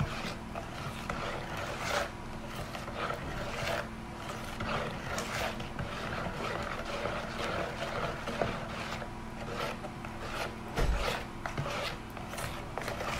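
A spatula stirring a thick, grainy body-scrub paste in a stainless steel bowl: irregular scraping and rasping strokes against the metal, with one low thump near the end.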